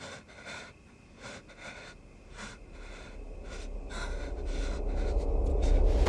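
A person breathing heavily in short, repeated gasps, about two a second. From about halfway through, a low rumble swells steadily louder underneath.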